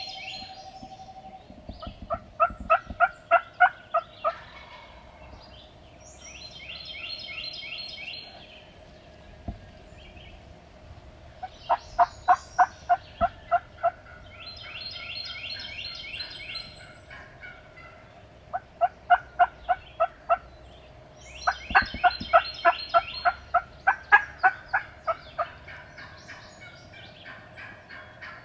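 Wild turkeys calling: a gobbler gobbles five times, and four loud series of turkey yelps, about ten notes each, come in between the gobbles.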